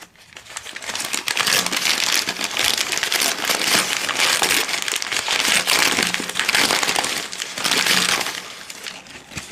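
Packaging being crinkled and rustled by hand, a dense crackling that swells through the middle and fades near the end.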